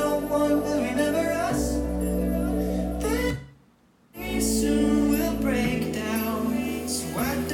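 A pop song with singing played through a Harman Kardon Onyx Studio Bluetooth speaker. The music cuts out for about a second, a little over three seconds in, then resumes.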